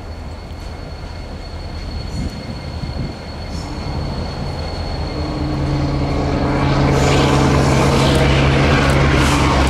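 Norfolk Southern SD70ACe diesel locomotive approaching at the head of a track geometry train: a steady engine drone that grows louder from about halfway in, with wheel and rail noise rising near the end.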